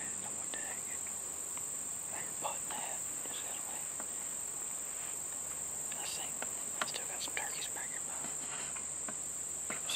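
Steady, high-pitched chorus of insects such as crickets, with a scattering of small short rustles and clicks, most of them between about six and seven and a half seconds in.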